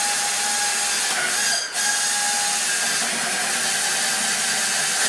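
Cordless drill running steadily under load with a whine, boring a long extended bit down through the layers of floor; it stops for a moment about a second and a half in and starts again.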